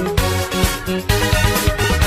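Background electronic music with a steady beat.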